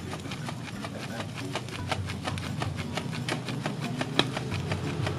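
A hand fan flapped rapidly over a charcoal grill of satay skewers: a quick run of short flapping strokes, several a second, over a steady low hum.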